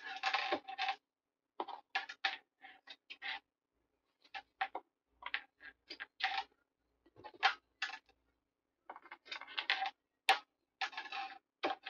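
Paper and crafting materials being handled and worked by hand: an irregular run of short scratchy rustles and clicks with brief pauses between them.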